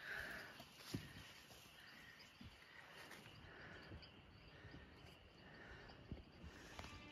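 Near silence: faint open-air ambience with soft chirping that repeats about once a second, and a few light knocks.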